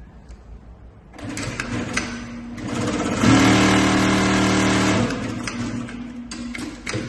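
Mauser Spezial 2645 heavy-duty sewing machine stitching. It picks up speed, runs loud and steady for a couple of seconds, then slows, with a few sharp clicks near the end.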